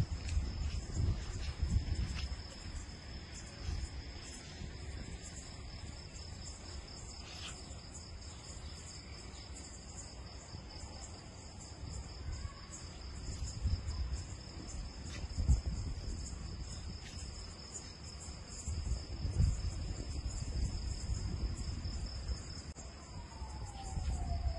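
Crickets chirping in a steady high trill, with low rumbles rising and falling now and then.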